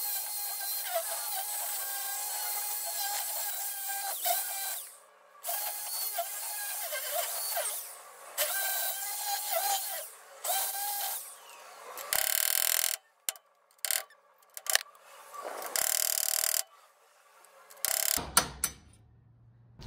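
Corded hammer drill boring out steel ball-joint rivets, running in repeated bursts that start and stop, with a whine that wavers in pitch, in sped-up timelapse playback. In the last several seconds the drilling gives way to short separate noises and sharp knocks with quiet gaps.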